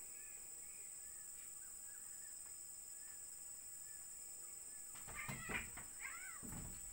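Quiet outdoor ambience: a steady high-pitched insect drone with faint, scattered bird chirps. About five seconds in comes a short, louder run of calls, with low bumps as two cats scuffle on the wooden deck.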